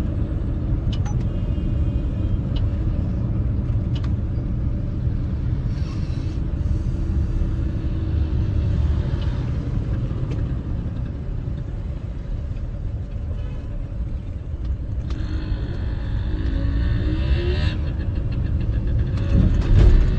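Steady low rumble of a car driving through city traffic, heard from on board. Another engine's note rises briefly near the end.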